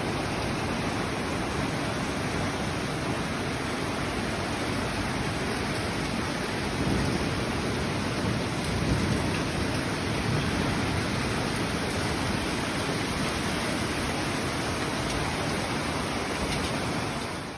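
Heavy rain falling, a steady even hiss that starts and stops abruptly.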